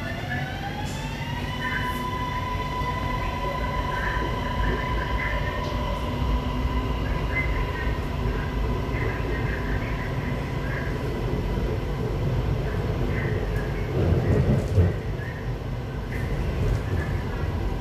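Metro train running with passengers aboard. The traction motor whine rises in pitch for the first second or so as the train gathers speed, then holds one steady pitch over the low rumble of the wheels on the track. The rumble swells briefly about 14 seconds in.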